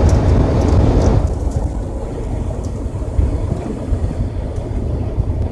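Steady low rumble of a big truck's engine and tyres heard inside the cab at highway speed, with a louder, brighter rush in about the first second.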